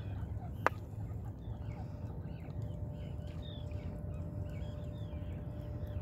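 Birds chirping in many short, quick calls over a low steady rumble and a faint steady hum, with one sharp click about half a second in.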